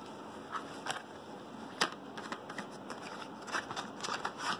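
A small packet being handled and opened to get at a fibre-optic stripper: light rustling with scattered sharp clicks, the loudest about two seconds in and several more close together near the end.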